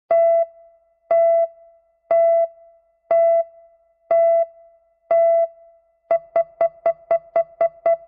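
Film-leader countdown beeps: a short electronic beep once a second, six times, then quickening to about four shorter beeps a second for the last two seconds.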